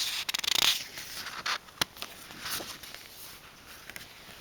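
Rustling and handling noises, loudest in the first second, with a single sharp click a little under two seconds in and fainter rustles after.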